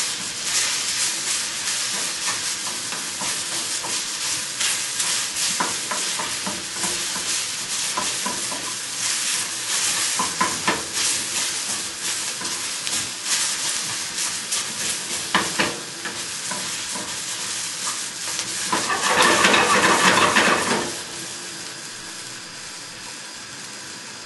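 Sliced onions sizzling in a frying pan in a little oil, stirred and turned with a wooden spatula that scrapes and knocks against the pan; the onions are starting to brown and caramelise. About two-thirds of the way through comes a louder stretch of stirring lasting about two seconds, then the sizzle carries on more quietly.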